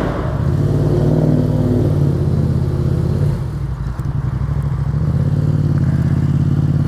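Yamaha FZ-07's 689 cc parallel-twin engine running as the bike rides off, its note steady apart from a brief dip about three seconds in.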